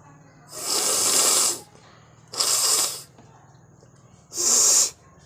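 A person blowing hard through the nose three times: loud blasts of air, the first about a second long, the next two shorter.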